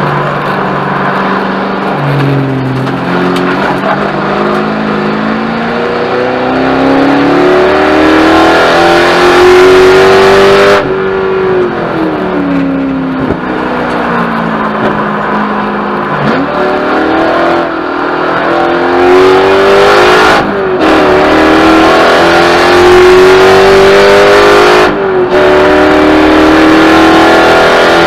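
Spec Corvette race car's V8 engine under racing load, heard from inside the car. The revs climb steadily, drop away for several seconds after a sharp break about 11 s in, then climb again with brief breaks at upshifts near 20 s and 25 s.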